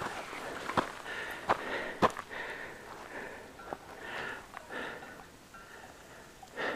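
A person breathing and sniffing, winded from the climb to a mountain pass, with a few sharp clicks in the first two seconds.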